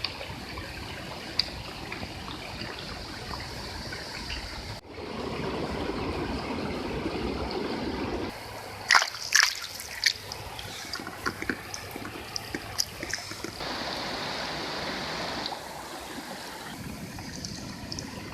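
A forest stream trickling and running over stones, in several short takes cut together. A few sharp splashes or clicks come near the middle.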